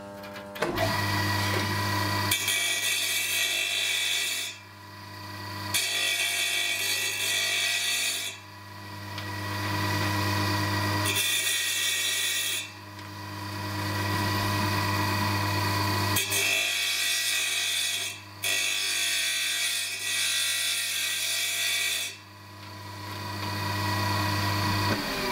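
Electric wet tile saw starting up and running with a steady motor hum. Its blade grinds along mosaic tile strips in about five passes of two to four seconds each, with brief lulls between them, tidying the rough cut edges.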